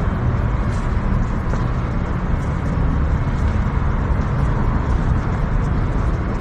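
Steady low rumbling noise with a fainter hiss above it, even throughout, with no distinct knocks, clicks or other events.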